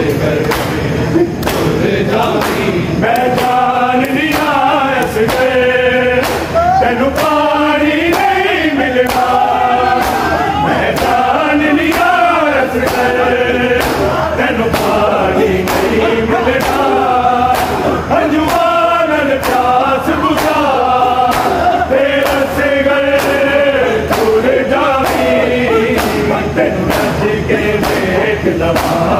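A crowd of men chants a noha lament in unison, keeping a steady beat of open-hand chest-beating (matam) slaps.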